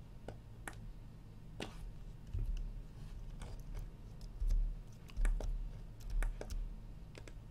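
Scattered sharp clicks of a computer mouse and keyboard, about a dozen, with a few dull low thumps between about two and six and a half seconds in.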